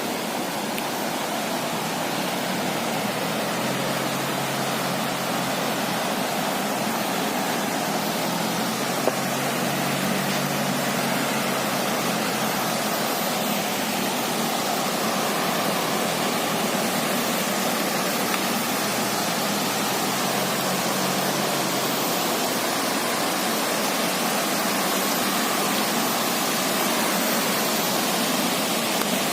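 Rushing water of a stream swollen by rain, a steady, unbroken hiss.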